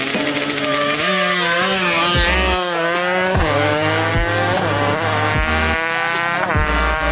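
Kawasaki Ninja drag bike engine accelerating hard, its pitch climbing steadily and dropping sharply at each gear change, twice.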